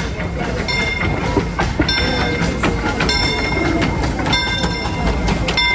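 Steam locomotive of the Disneyland Railroad rolling slowly into a station with a low rumble, its bell ringing about once a second.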